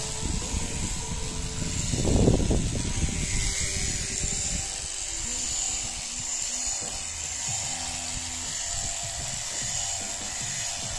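Electric sheep-shearing machine buzzing as the handpiece cuts through fleece, with music playing over it. A brief louder rush of noise comes about two seconds in.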